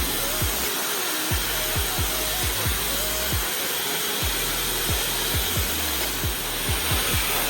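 Electronic background music with a steady drum beat, over the steady rush of air from a Laifen Mini hair dryer running.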